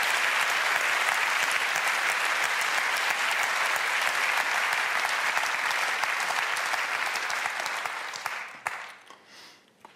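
Large seated audience applauding, a dense steady clatter of many hands, dying away about eight to nine seconds in.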